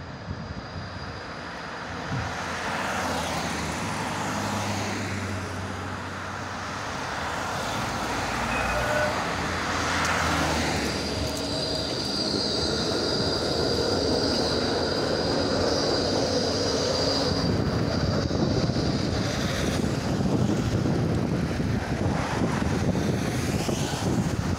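Yarra Trams D2-class tram running past at street level, its rumble building as it approaches. A high steady whine sounds for several seconds while it goes by close, all mixed with passing car traffic.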